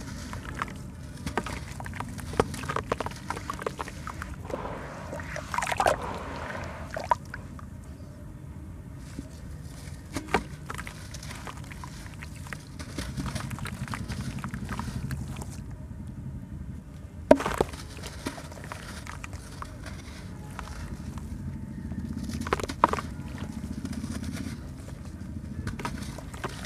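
Chunks of charcoal sand cement crumbling in wet hands, with grit and lumps pattering and splashing into a tub of water. Small crackles run throughout, and a few louder sharp cracks come as lumps break, the loudest about 17 s in, over a steady low rumble.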